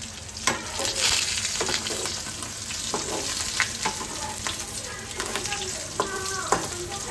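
Spice-coated fish steaks sizzling as they fry in oil in an aluminium kadhai. A steel slotted spatula scrapes and clicks against the pan again and again as the pieces are turned.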